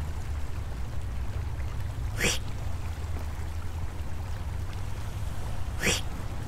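Steady low rumble under an even hiss, with two short rising swoops about three and a half seconds apart, one about two seconds in and one near the end.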